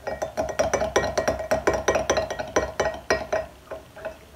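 A metal spoon stirring liquid in a glass cup, clinking rapidly against the glass at several strokes a second, with a ringing glassy tone. The clinking thins out about three and a half seconds in.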